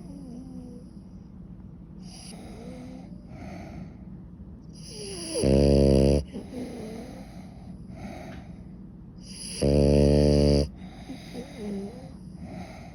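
French bulldog snoring loudly: two long buzzing snores, about five and a half and ten seconds in, with quieter hissing breaths between them.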